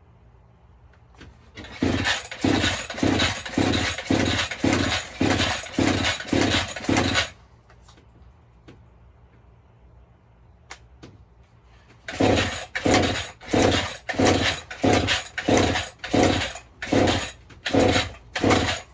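Two-stroke chainsaw being pull-started over and over: two runs of quick pulls on the recoil starter, about two a second, each a short whirring chug of the engine turning over without catching. The saw has sat unused a long time and the owner blames a bad spark plug.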